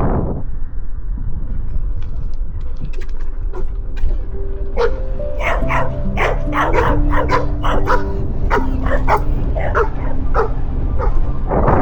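A dog barking repeatedly, a rapid string of short barks starting a few seconds in, over background music with held notes.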